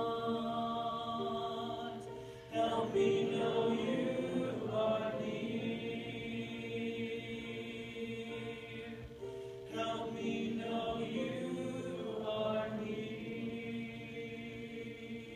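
Voices singing a slow chant in long held notes. The chord changes about two and a half seconds in and again near ten seconds.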